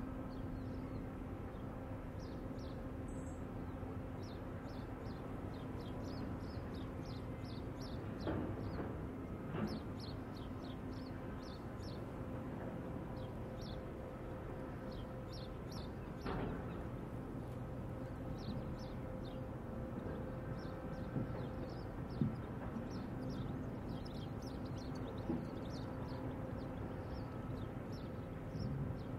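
Steady low mechanical drone, holding one pitch, with small birds chirping repeatedly over it and a few soft knocks.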